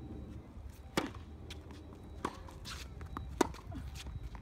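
Tennis ball struck by racket during a serve and rally: a sharp pop about a second in, a fainter hit from the far end a little after two seconds, then the loudest strike, with lighter clicks of the ball and feet between.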